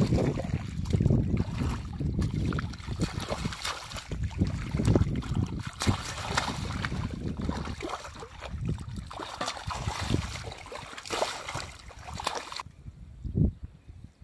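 Hands splashing and sloshing in shallow muddy paddy water, groping for fish: irregular splashes and swishes, heaviest at the start. The splashing dies down near the end.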